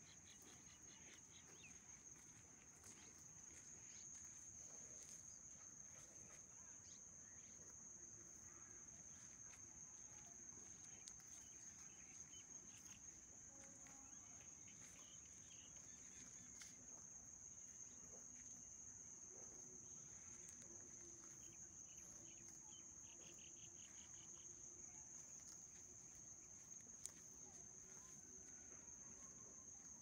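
Faint, steady high-pitched insect chorus, such as crickets, with a few soft ticks.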